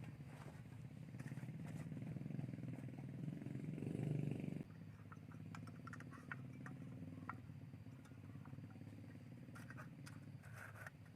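A small engine running steadily, growing louder until about four and a half seconds in, then suddenly quieter, with scattered light clicks.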